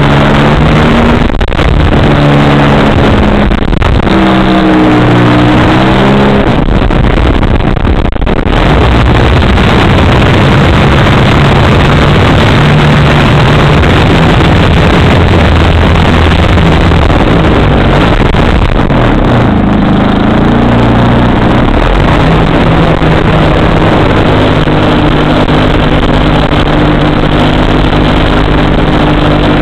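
3W two-stroke gasoline engine of a large RC aerobatic plane running loud in flight, heard through an onboard camera with air noise on the microphone. Its pitch swings down and up with throttle changes a few seconds in and again around two-thirds of the way through, and runs steadier in between.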